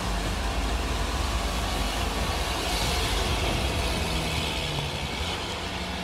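Shatun Prime amphibious ATV's engine running steadily under load as the machine climbs a steep bank out of the water.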